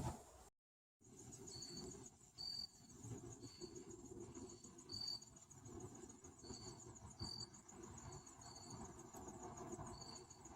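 Crickets or similar insects: a steady, rapidly pulsing high trill, with short, slightly lower chirps about once a second, over a faint low rumble. A brief knock and a moment of silence come before them.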